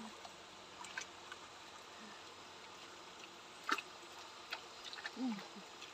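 A square lift net being raised out of a river, dripping, with a few scattered sharp ticks over a quiet background hiss; the sharpest tick comes a little before four seconds in.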